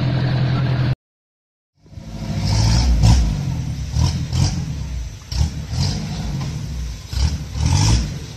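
A 4x4 engine idling steadily, cut off after about a second by a short gap of silence. Then a Daihatsu Taft 4x4's engine revs in uneven surges under load as it crawls up a rocky trail.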